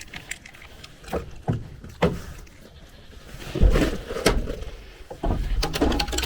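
A goat bleats about halfway through, among a few sharp clicks and knocks; near the end a low rumble of wind comes over the microphone.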